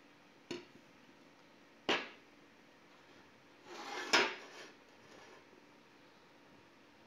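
Metal bicycle cassette cogs being set down on a wooden tabletop: three clanking knocks. The loudest comes about four seconds in, just after a short slide.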